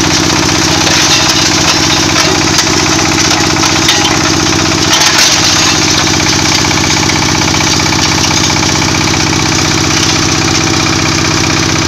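Small single-cylinder diesel engine running steadily, belt-driving a small hammer crusher. Scattered sharp clicks and rattles sound over the first five seconds or so.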